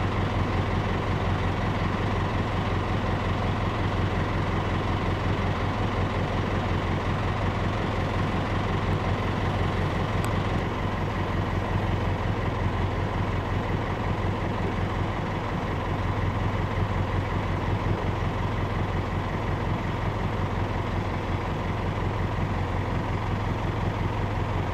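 A combustion engine running steadily at one constant speed: an even, low hum with a rumble underneath that neither rises nor falls.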